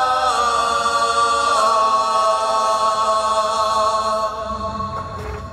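A rondalla's male voices singing a long held chord in harmony, with a slight waver and a small shift in pitch near the start; the chord dies away near the end.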